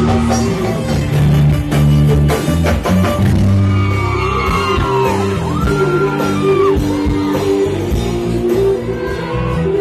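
A woman singing an Assamese song into a microphone over live band accompaniment, with long held bass notes underneath.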